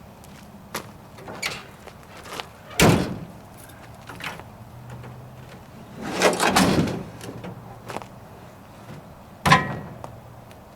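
Scattered knocks and clatter: a loud knock about three seconds in, a longer rattle around six seconds, and a sharp knock near the end, with smaller clicks between.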